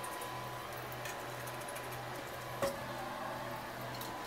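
Screwdriver working a bolt into the steel frame of a Pilates Cadillac trapeze table: faint small ticks and one sharp click about two and a half seconds in, over a steady low hum.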